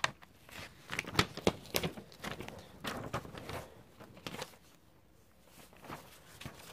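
Paper rustling and sharp crackles as the pages of a spiral-bound sketchbook are turned and the sketchbook is handled. The sounds are densest in the first four or five seconds, then quieter.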